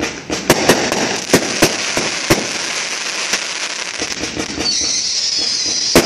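Aerial fireworks going off: a string of sharp bangs, about one every half second to a second, over a continuous dense layer of fast small pops.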